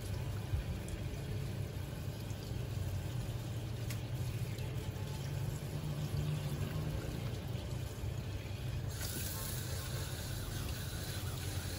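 Water running steadily from a tap over raw chicken pieces in a plastic colander, with hands splashing as they wash the chicken.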